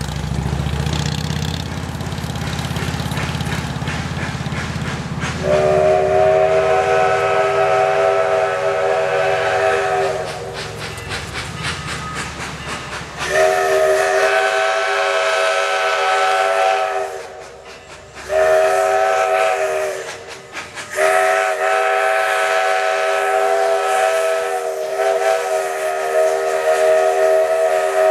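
Steam whistle of Southern Railway 2-8-0 #154, blown long, long, short, long: the standard grade-crossing signal as the locomotive approaches. A passing car's engine rumbles beneath it in the first few seconds.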